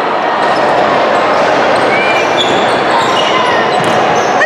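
Basketball game play on a hardwood gym court: the ball bouncing and sneakers squeaking over a steady wash of voices, echoing in the large gym.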